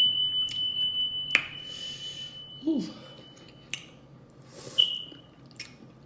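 Close-miked mukbang eating sounds: sharp wet mouth smacks and chewing clicks from someone eating a seafood boil. A steady high ringing tone fades away a little before four seconds in, with a brief return about five seconds in, and a short 'ooh' comes about two and a half seconds in.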